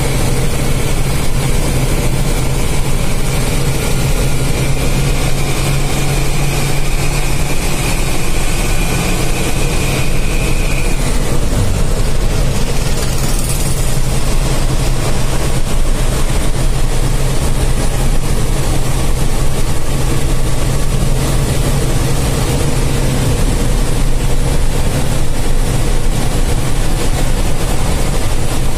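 BharatBenz 1623 bus's 230 hp diesel engine running steadily at cruising speed, heard from inside the cab together with road noise. A faint high whine is present until about eleven seconds in.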